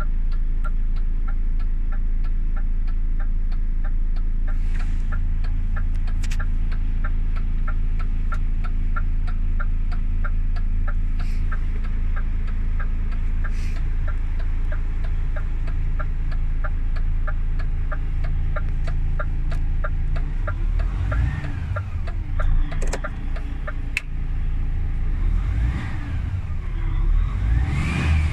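DAF XF 460 truck's PACCAR MX-13 straight-six diesel heard from inside the cab, idling steadily with a regular light ticking of about three ticks a second. From about twenty seconds in, it is revved up and down a few times.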